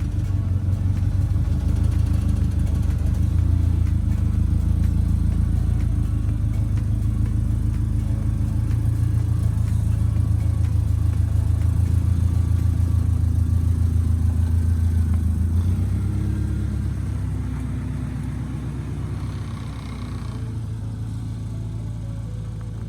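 1996 Acura Integra four-cylinder engine running through a freshly fitted straight-pipe exhaust, a steady low drone that drops in level about sixteen seconds in.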